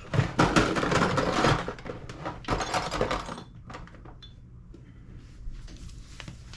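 Small hard parts being handled and moved about on a bench: a dense clatter and rustle for about the first second and a half, another short cluster of clicks a second later, then only scattered light clicks.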